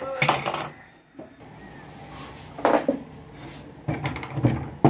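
Metal clinking and clattering of a sewing machine being worked on during repair, in three short bursts: right at the start, near the middle, and a longer one near the end.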